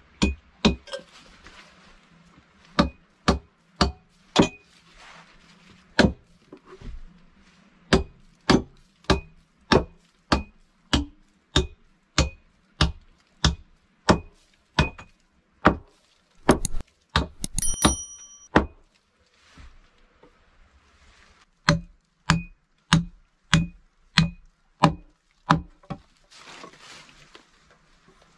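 Hammer driving nails into a wooden plank bench: steady blows about two a second, many with a short metallic ring from the nail. The blows come in two runs with a pause between them, and a brief metallic jingle comes just before the pause.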